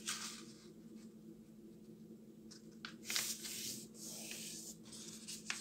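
Origami paper being folded in half and its crease pressed flat by hand: faint paper rustling and rubbing, with a few soft ticks near the middle and the rubbing strongest in the second half.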